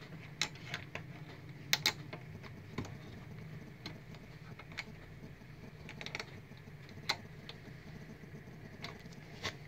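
Scattered small clicks and light handling noise of a plastic wire connector being pushed onto a digital voltmeter's circuit board, about ten irregular clicks over a steady low hum.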